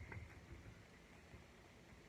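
Faint chewing of a foil Pokémon trading card, a few soft crunches in the first second and a half, otherwise near silence.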